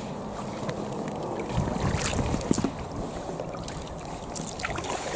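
Kayak paddles dipping and splashing in canal water as a two-person kayak is paddled along, with a run of louder paddle splashes about two seconds in.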